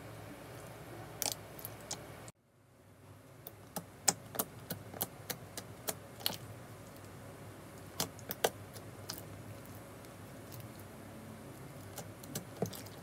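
Fingers pressing and kneading clear, jiggly slime studded with plastic beads, giving irregular sharp clicks and small pops over a low steady hiss; the slime is now well blended. The sound drops out briefly about two seconds in, then fades back.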